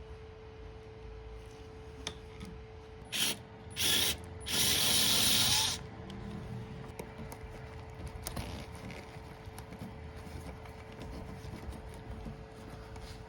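Hand ratchet wrench working the strut bar's mounting nuts: three loud bursts of fast ratcheting about three to six seconds in, the last running over a second, then slower scattered clicks.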